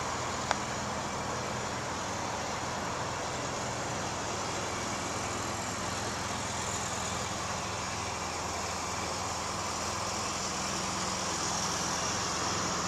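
Steady outdoor background noise: an even hiss with a faint low hum, and a single sharp click about half a second in.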